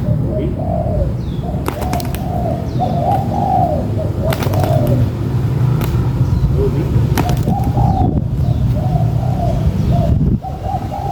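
Spotted doves (tekukur) cooing in repeated, overlapping phrases, with a few sharp clicks. A steady low rumble sits underneath and drops away about ten seconds in.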